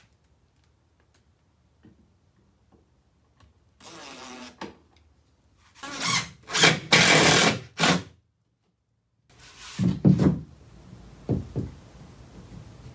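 DeWalt cordless drill driving screws into wood in several short loud bursts, about six to eight seconds in, after a brief spin of the motor a couple of seconds earlier. A few duller thuds follow near the end.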